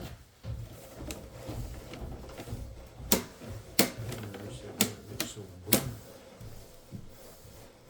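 Sharp, irregular clacks and knocks over a low rumble, five loud ones within about three seconds in the middle.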